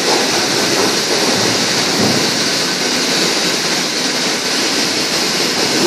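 Steady, loud rushing noise with no pitch and no breaks: the constant background noise of a working kitchen.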